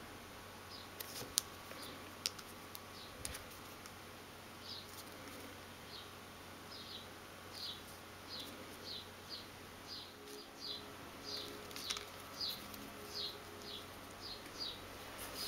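A small bird chirping over and over: short falling chirps, about two a second, faint at first and steady from about five seconds in. A few light clicks from small tools on the tabletop come in the first few seconds.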